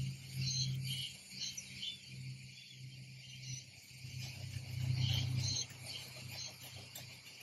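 A low rumble that swells and fades, loudest at the start and again about five seconds in, under scattered short high chirps.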